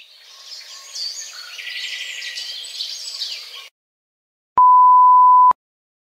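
Birdsong sound effect: several birds chirping, cut off abruptly a little past halfway. After a short silence comes a blooper censor beep, one steady tone about a second long and louder than the birds.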